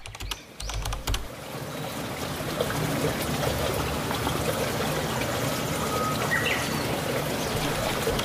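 Steady rushing, trickling noise like flowing water, with a burst of quick clicks in the first second and a couple of faint short chirps about six seconds in.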